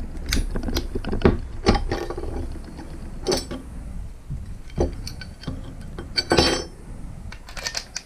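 Irregular clicks and knocks from handling a cordless oscillating multitool while changing its accessories: the blade is taken off and set down on a wooden table. The tool is not running.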